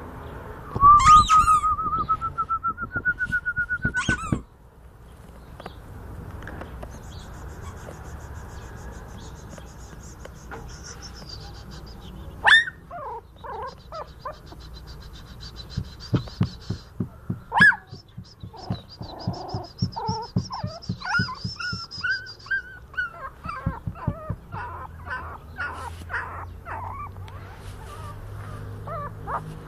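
Miniature schnauzer puppy whimpering and squealing, with two sharp squeals a few seconds apart and then a run of short, rising-and-falling whimpers. The first four seconds hold a loud, slowly rising tone over rapid clicking.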